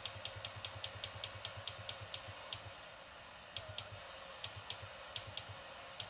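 Radio receiver audio through a laptop speaker: a steady hiss with a run of sharp, uneven clicks, several a second, from an FM signal received through a tuner's IF output and an RTL-SDR dongle.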